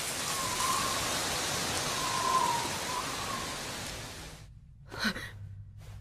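Steady rushing noise of wind through forest trees, with a faint wavering whistle over it. It cuts off suddenly about four and a half seconds in, and a short vocal sound follows near the end.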